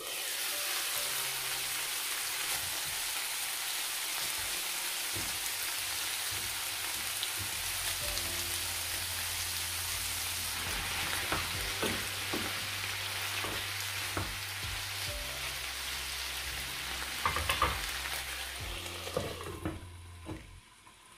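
Flowering cauliflower sizzling in a hot frying pan: a loud, steady frying hiss that starts suddenly as the glass lid comes off. In the second half there is a series of knocks and clicks. The sizzle falls away near the end as the lid goes back on.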